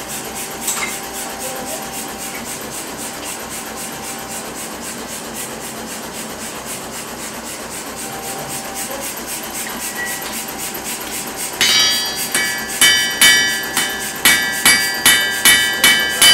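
Blacksmith's hand hammer striking a red-hot iron bar on an anvil, about two blows a second starting near the end, each blow ringing from the anvil. Before that, a steady noise from the forge fire while the bar heats.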